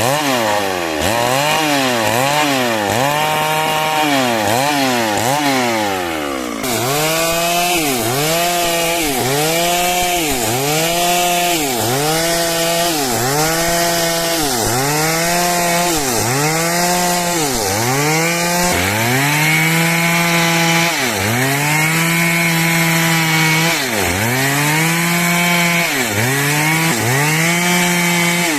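Stihl MS 382 two-stroke chainsaw cutting through wood at high revs. Its engine pitch dips and recovers again and again, quickly at first, about twice a second, then slowing to about once a second after the first six seconds.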